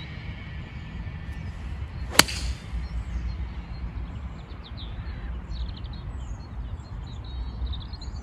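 A golf iron (6-iron) striking the ball on a full swing: one sharp crack about two seconds in, over a steady low rumble.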